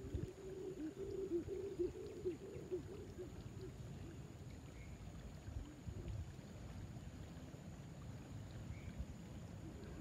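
Riverside ambience: a low rumble, with a run of low wavering calls in the first three seconds and a few faint, short bird chirps spread through the rest.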